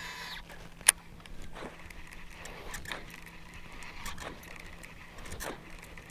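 Baitcasting reel retrieve after a cast: one sharp click about a second in as the reel is engaged, then soft swishing strokes about every second and a bit as the topwater propeller lure is worked back.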